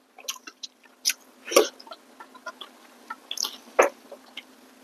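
Eating sounds: chewing and mouth smacking of rice and fried pork eaten by hand, with a scatter of short sharp clicks and crunches, the loudest about a second and a half in and again near the end.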